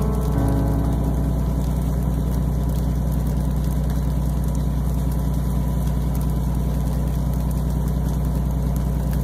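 Fishing vessel's engine running steadily: a low drone with a fast, even pulse.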